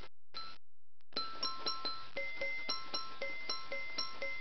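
Toy xylophone's metal bars struck over and over in a quick, even rhythm of about four notes a second, each note ringing on into the next. The notes break off briefly about half a second in, then carry on.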